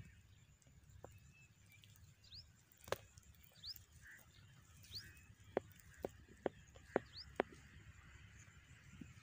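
A bird calling with short rising chirps every second or two, over a low rumble, with several sharp clicks scattered through the middle.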